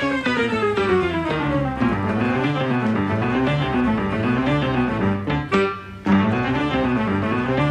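Instrumental background music with a melody that moves up and down, briefly dropping away about six seconds in.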